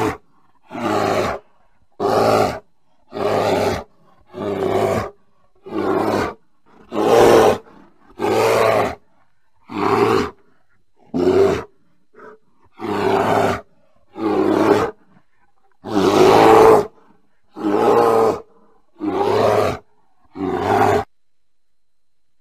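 A bear calling in a long, regular series of short vocalisations, one about every 1.3 seconds, each under a second long with silence between. One call about two-thirds of the way through is longer and louder than the rest.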